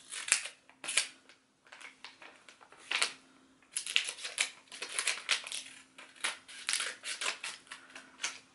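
Scissors snipping through a thin plastic book wrapper, a few separate snips over the first three seconds, then a dense run of snips and plastic crinkling from about four seconds in as the wrapper is cut open and pulled away.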